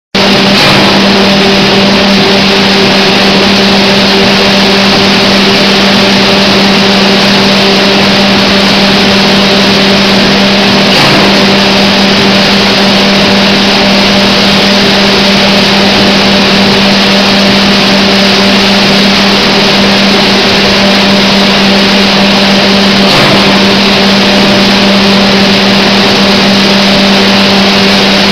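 Automatic flour bag-packing machine and its conveyor running: loud, steady machine noise over a constant motor hum, with a faint knock about every twelve seconds.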